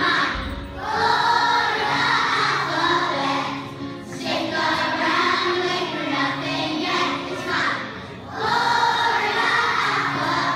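A large children's choir singing a song together over musical accompaniment, in phrases with brief lulls about four and eight seconds in.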